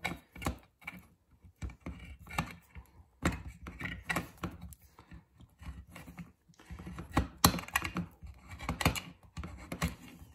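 A small handmade can opener cutting around the lid of a steel food can, each rocking stroke a sharp click or crunch in an irregular series. It cuts through without trouble.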